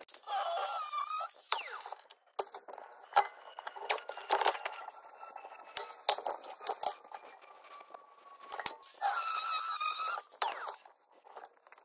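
Sped-up workshop sounds: a handheld power tool's motor whines up to speed, runs briefly and winds down, twice. Between the two runs come quick metal taps and clanks.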